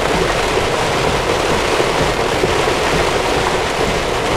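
Heavy rain beating on a car's windshield, heard from inside the moving car as a steady, dense hiss. The noise comes through the front glass; the roof is sound-deadened and stays quiet.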